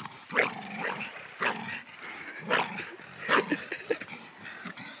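Staffy-type dog giving short, excited barks and yips, one every second or so, while it tugs on a rope with its teeth.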